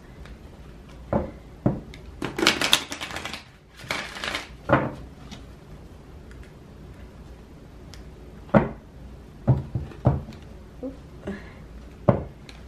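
Tarot and oracle card decks being handled and shuffled: several sharp taps as a deck is knocked and squared against the table, and two short riffling bursts a little after two and four seconds in.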